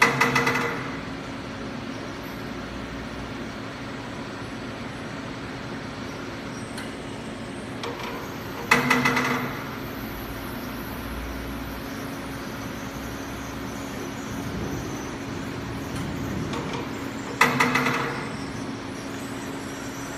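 Beeswax foundation sheet machine running with a steady hum, broken every eight to nine seconds by a loud burst of mechanical noise that fades over about a second. This happens three times, and each burst comes just after a faint click.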